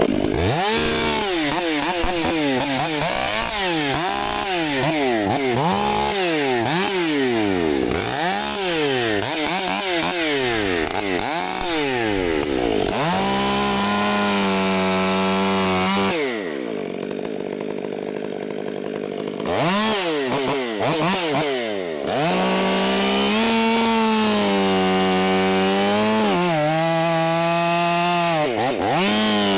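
Gas chainsaw revving up and down about once a second, then held at steady high speed for a few seconds. It drops to a low idle, revs again and runs at steady high speed through the end.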